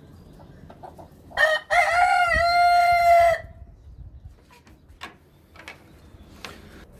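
A rooster crowing once, about two seconds long: a short opening note, then a long held note that dips slightly in pitch midway.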